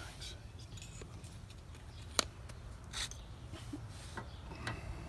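Light metal clicks of steel transfer punches being handled and set into a bracket's holes, with one sharp click about two seconds in and a softer one a second later, over a low steady rumble.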